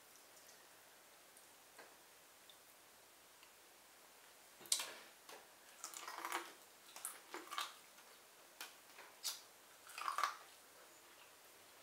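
Faint room tone, then from about five seconds in a run of close, wet mouth clicks and smacks of someone chewing soft lobster tail meat, with one more smack near the end.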